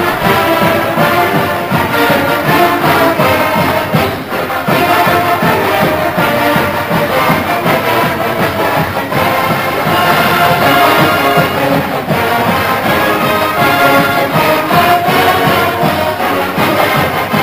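Marching band brass and drums playing at full volume: massed trombones and trumpets over a steady drum beat.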